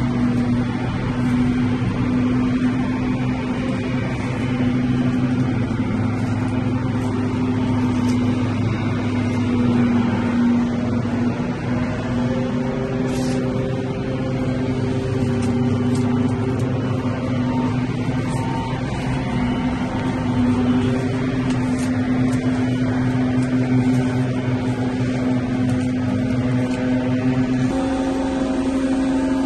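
Small petrol engine of a leaf blower running steadily at high speed, a constant droning whine, its pitch rising slightly near the end.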